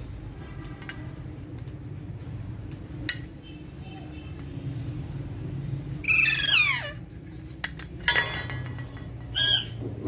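Alexandrine parakeets calling: one loud squawk falling steeply in pitch about six seconds in and a short call near the end. Sharp metallic clinks of steel bowls knocked on the wire cage top, the loudest just after eight seconds, over a steady low hum.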